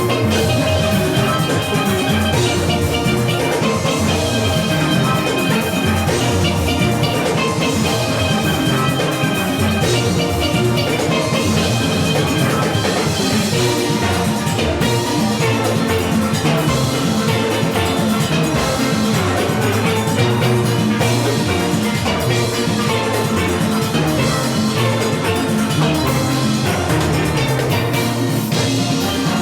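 Steel orchestra playing: many steel pans ringing together over a steady drum-kit and percussion beat.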